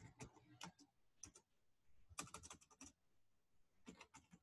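Faint computer keyboard typing: scattered single keystrokes, then a quick run of keys about two seconds in and another near the end.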